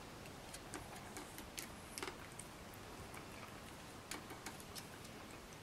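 Light, irregular plastic clicks and taps from an Activity Turn Around cat treat toy as a cat bites and turns its treat tube on the rod.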